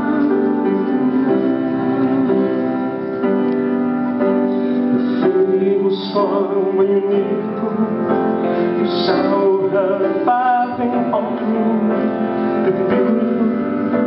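Grand piano played live with a man singing over it, his voice gliding through a slow, high melody.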